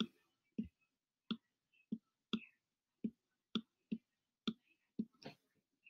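Stylus tapping on a tablet screen during handwriting: about ten short, light clicks at uneven intervals.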